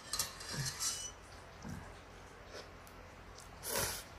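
Ramen noodles slurped in short sucking bursts in the first second, then a few small mouth sounds, and a louder slurp of broth from a metal pot lid near the end.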